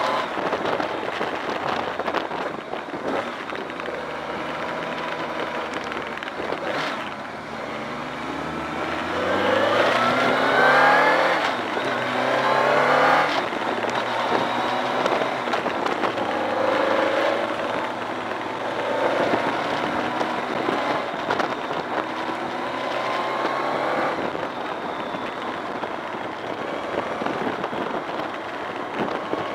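On-board sound of a BMW K1200R's inline-four engine running under way with wind and road noise. The revs rise several times between about nine and thirteen seconds in, the loudest part, as the bike accelerates.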